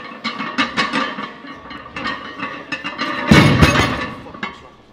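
A loaded barbell with iron plates is set down hard on the gym floor at the end of a deadlift. It lands with a heavy thud and clang about three seconds in, over background music.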